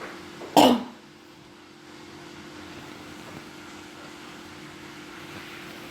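Room tone: a steady faint hiss with a low, even hum, broken about half a second in by one brief puff of noise.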